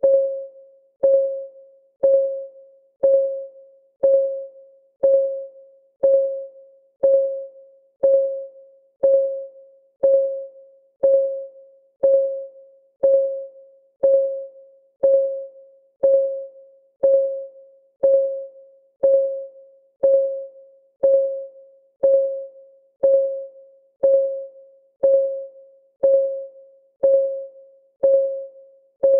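Countdown timer's clock-tick sound effect: one short pitched tick every second, each a single clear tone that rings briefly and dies away before the next.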